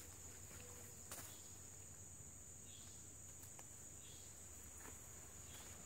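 Steady, high-pitched chorus of insects in summer woodland, a continuous even buzz, with a few faint clicks about a second in and later.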